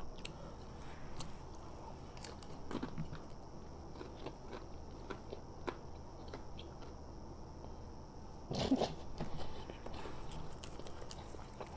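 A person chewing and biting food, with scattered small mouth clicks and one louder spell of eating noise about eight and a half seconds in.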